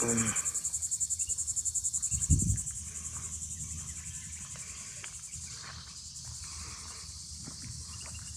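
Outdoor insect chorus: a high, fast-pulsing trill that is strongest for the first two seconds or so and then carries on more evenly and faintly. A single low thump about two seconds in.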